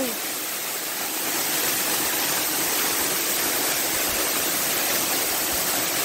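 Waterfall's falling water rushing in a steady, even hiss with no change in level.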